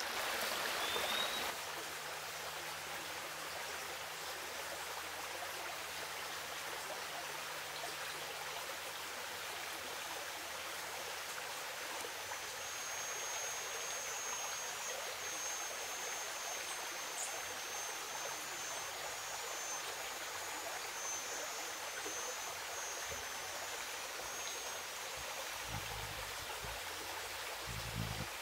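Steady rush of a running stream, with a thin high whine through the middle and a few low bumps near the end.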